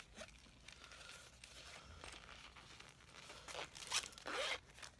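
The zipper of a small fabric pencil pouch being worked: a few seconds of faint handling, then two short zip strokes about three and a half seconds in.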